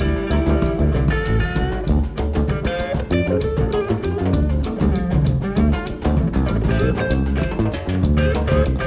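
Jazz band playing: guitar lines over bass guitar and drum kit, with a steady beat.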